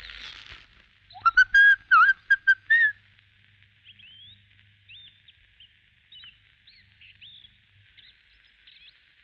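A quick run of about eight loud, short whistled notes with dipping pitch, lasting under two seconds, starting about a second in. Faint scattered bird chirps follow.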